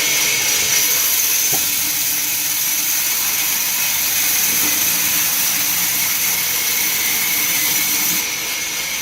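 A machine running steadily, giving a constant high-pitched whine over a hiss.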